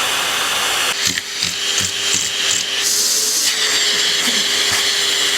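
Vacuum cleaner running: a steady motor hum and airflow hiss. The sound changes abruptly about a second in, after which a steady whine holds.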